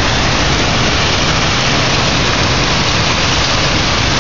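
Heavy thunderstorm rain pouring down in a loud, steady rush.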